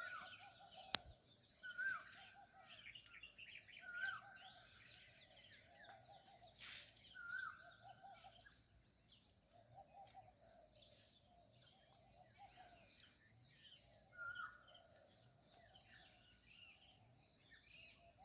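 Faint chorus of forest birds: one short call with an upward flick repeats about every two seconds over a lower warbling call and scattered high chirps. A single sharp click comes about a second in.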